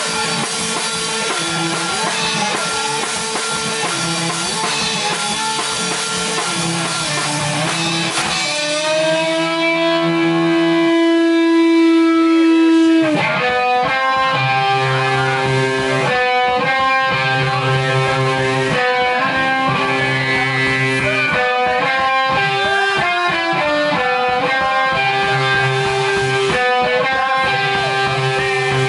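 Distorted electric guitar and a Pearl drum kit playing rock together live. About a third of the way in the drums stop and one long note is held. Then the chord rhythm and drumming come back in.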